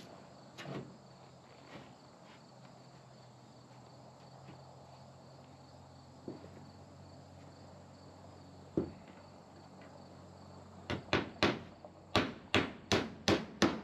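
Hammer driving nails into poplar lap siding: a few scattered knocks, then a quick run of about eight sharp blows near the end, roughly three a second. Faint steady insect chirring underneath.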